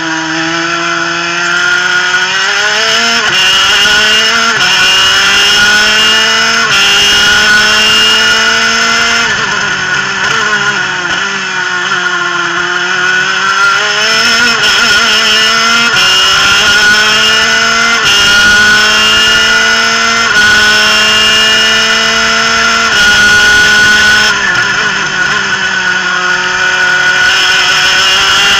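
Onboard sound of a superkart's twin-cylinder two-stroke engine at racing revs. It climbs in pitch through a string of upshifts, drops back under braking about a third of the way in and again near the end, then pulls hard once more.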